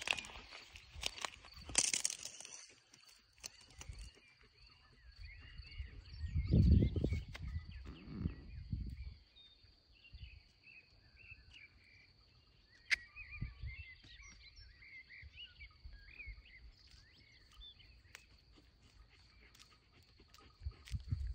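Meadow ambience: small birds chirping faintly through a steady high-pitched whine. There are brief rustles and clicks in the first two seconds, and a low rumble from about six to nine seconds in.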